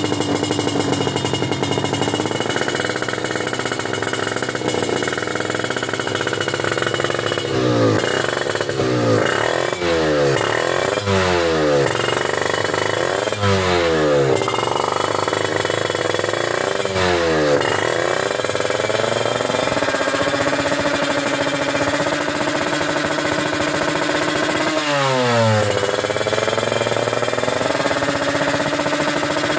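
Tuned two-stroke Kawasaki Ninja 155 single-cylinder drag-bike engine with a Fantera racing exhaust, running at a steady idle and blipped to high revs about seven times, each rev rising sharply and falling straight back.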